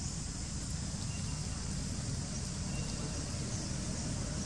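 Steady outdoor background noise: a low rumble under an even high hiss, with a few faint short high peeps.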